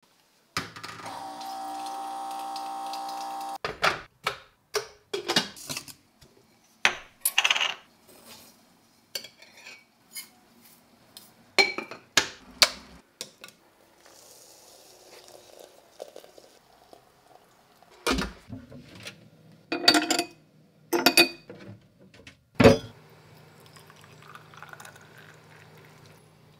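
An electric water-bottle dispenser pump runs with a steady whirr for about three seconds. Then come a series of sharp clinks and clatters from a glass teapot, its steel infuser, and a glass tea cup and saucer. Near the end there is a soft pour of tea into the glass.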